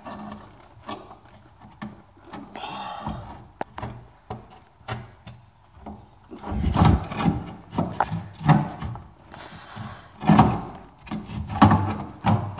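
Knocks, scrapes and rubbing as a classic Mini's hydrolastic suspension bag is pried and twisted out of its mounting with a long metal tool, rubber and metal working against the car's body. Scattered at first, the knocks come louder and more often from about halfway.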